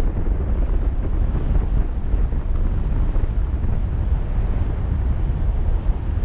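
Wind rushing over a camera microphone in paraglider flight: a steady, loud low buffeting rumble with no pauses.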